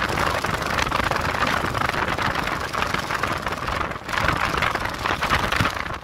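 Strong gusting wind buffeting the microphone, with the clear plastic sheeting of the tent flapping and crackling. The gust eases briefly about four seconds in, then rises again.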